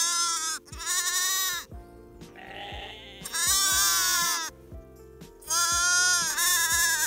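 Young lambs bleating: four loud, quavering bleats, two close together at the start and two more after a short pause, over background music with a steady beat.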